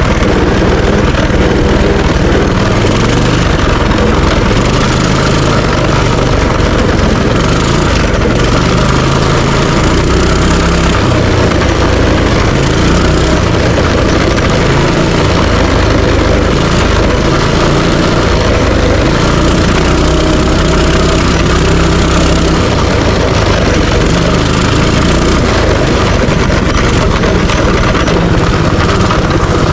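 Minibike engine running under way, its pitch rising and falling every few seconds as the throttle changes.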